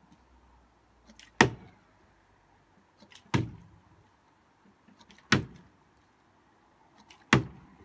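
Partly filled plastic water bottle flipped and landing on a fence top: four sharp thuds about two seconds apart.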